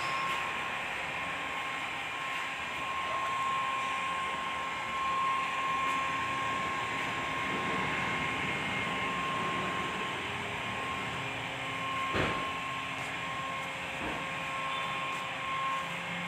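Steady whirring of a small motor-driven blower, with a thin high tone held throughout and one sharp knock about twelve seconds in.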